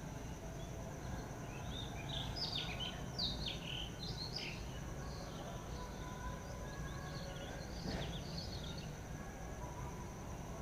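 Wild birds chirping in quick high notes, busiest about two to four seconds in and again around eight seconds, over a steady high-pitched insect drone and a low background hum of outdoor noise.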